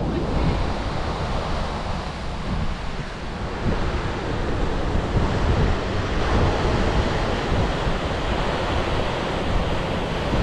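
Ocean surf breaking and washing up on a cobble beach in a steady rush, with wind buffeting the microphone.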